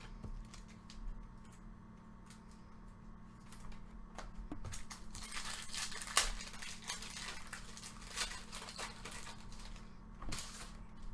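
Trading cards being handled and flipped through: soft slides and scattered clicks, busiest around the middle, with a sharp click about six seconds in, over a faint steady electrical hum.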